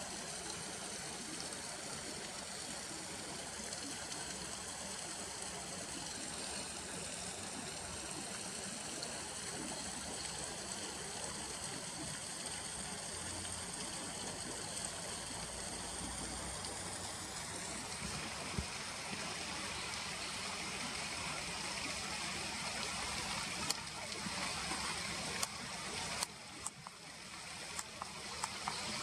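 River water flowing steadily, an even rushing sound, with a faint steady high-pitched whine over the first two-thirds and a few sharp clicks near the end.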